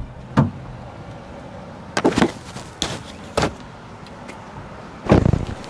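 A string of sharp knocks and thumps: a single one early, a quick cluster about two seconds in, two smaller ones after, and the loudest near the end.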